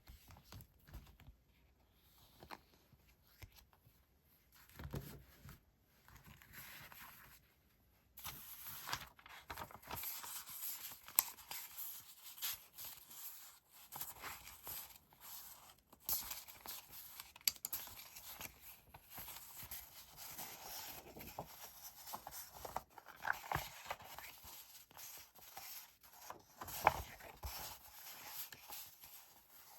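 Paper decorating items being handled at close range: crisp paper rustling and crinkling with scattered small clicks and taps. It is sparse at first and becomes busier and continuous about eight seconds in.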